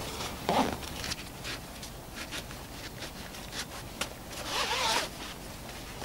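A nylon belt pouch being worked free of a backpack's straps and handled, making a run of short rasps and clicks. A longer ripping rasp comes about four and a half seconds in.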